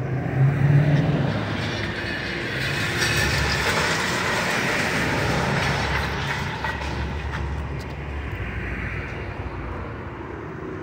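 Excavator's diesel engine running under load while its bucket tears into the building, with a swelling crunch and scrape of torn metal and debris through the middle.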